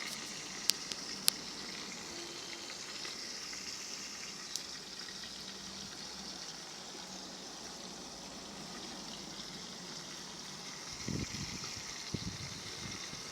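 Dumplings frying in hot oil: a steady sizzle, with a few sharp pops in the first few seconds and a couple of dull knocks near the end.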